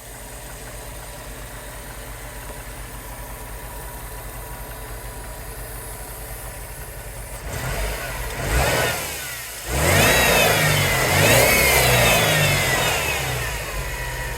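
An engine idling steadily, then revved: a short blip of the throttle just after halfway, then a longer rev, its pitch rising and falling twice, before it drops back to idle near the end.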